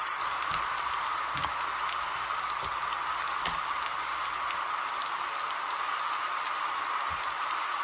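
Steady hiss of background room noise, with a few faint soft clicks.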